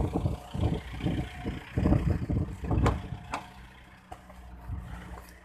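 A pickup truck's engine idling, mixed with irregular bumps and rustling for the first few seconds. It then settles to a steady low hum heard from inside the cab.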